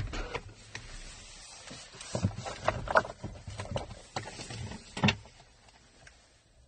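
Irregular plastic clicks and knocks of a hand handling a small object in a car's glovebox, with a sharper knock about five seconds in.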